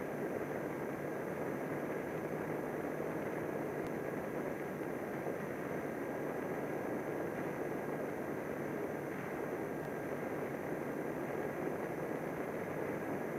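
Steady rush of air over the Eachine Razor glider's onboard camera in flight, an even unchanging noise with a faint steady high whine running through it.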